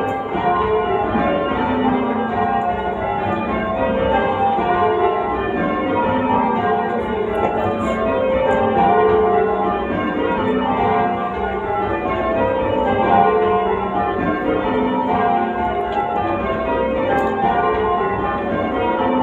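A ring of eight church bells rung full-circle in rounds, each bell striking in turn from the treble down to the tenor, the descending run repeating evenly over and over.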